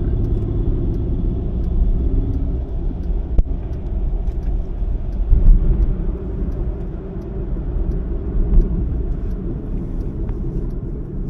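Car driving at road speed, heard from inside the cabin: a steady low rumble of tyres and engine, with a single sharp click about three and a half seconds in.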